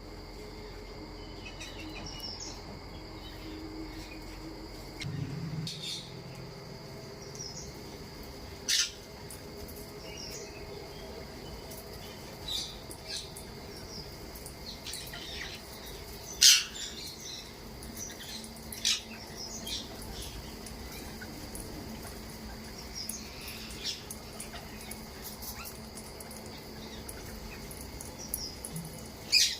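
Parrots giving short, sharp squawks every few seconds, the loudest about halfway through and another near the end, over a steady high-pitched tone.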